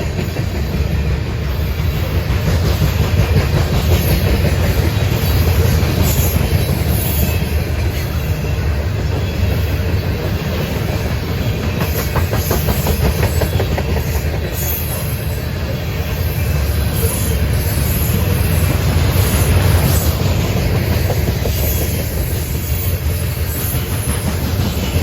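Loaded grain train rolling past, its cars' wheels clacking over the rail joints above a steady low rumble.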